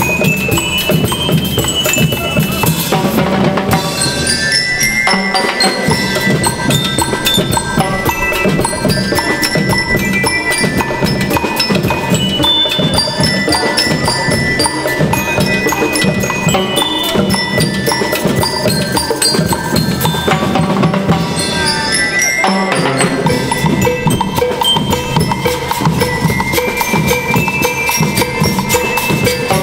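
School rhythm band playing a tune: bell lyres carry the melody over steady snare, bass drum and drum-kit beats. The drums drop back briefly twice.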